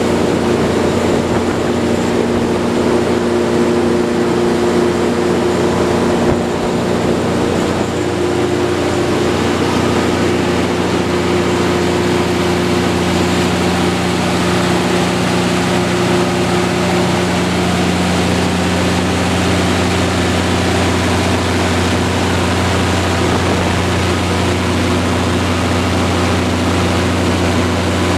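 300 kW Cummins/Onan natural gas generator set running at a steady speed: a constant engine drone with steady tones. The tone mix shifts slightly about eight to ten seconds in.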